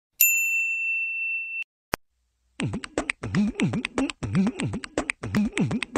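Edited-in sound effects: a high steady electronic tone for about a second and a half, one sharp click, then a rhythmic beatbox-style vocal effect with swooping pitch, about two beats a second.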